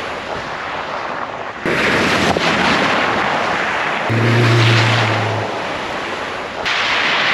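An off-road 4x4 driving hard through mud: its engine runs under a loud rush of tyre, spray and wind noise. A steady engine note stands out for about a second near the middle. The sound cuts abruptly a few times.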